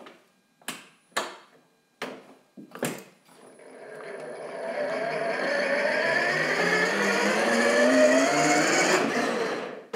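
Red electric ride-on toy car: a few clicks and knocks, then a whine that rises steadily in pitch and grows louder as the car speeds up, cutting off just before the end.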